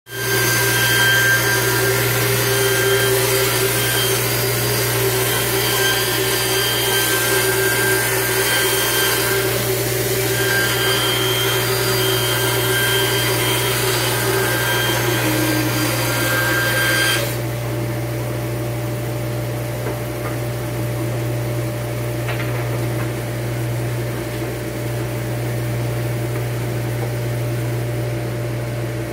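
Band saw ripping a long wooden strip, a bright high-pitched whine over the steady low hum of a dust collection system. The sawing stops abruptly a little past halfway, leaving the dust collector running on its own.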